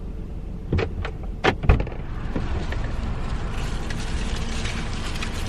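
A few sharp knocks and clicks inside a car, then a steady rushing hum sets in about two seconds in, like the car's engine and fan running.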